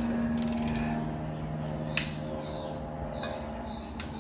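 Long-handled wrench turning cylinder head bolts down on an LY5 5.3L V8, giving a few sharp clicks, the loudest about two seconds in, over a steady low hum.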